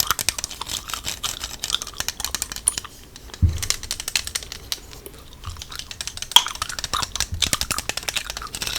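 Close-miked hair play: hair being handled and brushed, a dense run of fine crackling clicks that comes in bursts, with a low thump about three and a half seconds in.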